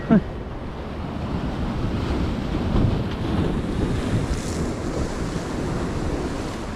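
Surf washing onto the beach in a steady rush, swelling slightly about three seconds in, with wind buffeting the microphone. A short falling vocal cry at the very start.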